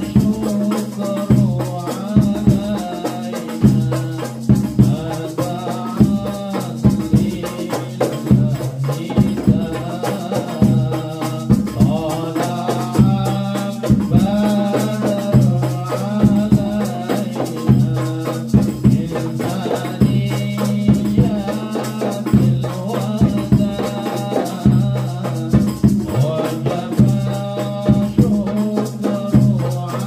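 Hadroh ensemble performing sholawat: a singer on a microphone over hand-held frame drums and jingling tambourines beating a steady, driving rhythm.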